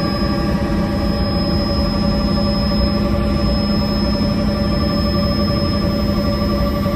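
Helicopter cabin noise in flight: a steady engine and rotor drone with a thin, high whine running through it.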